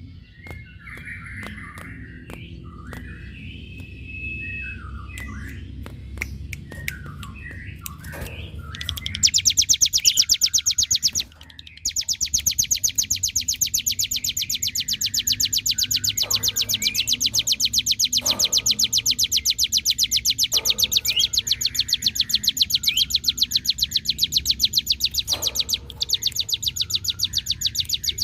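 Cigun songbird singing: varied short chirps at first, then from about nine seconds a loud, very fast, buzzing trill held almost without pause (the prolonged 'ngebren' song). The trill breaks off briefly once and carries a few short rising squeaks.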